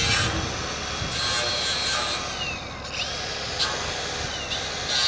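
Milwaukee angle grinder with a cutting disc cutting the van's metal bodywork. Its high motor whine holds, drops away when the trigger is released about halfway through, spins back up at once, and drops away again about a second before a loud burst of harsh grinding hiss near the end.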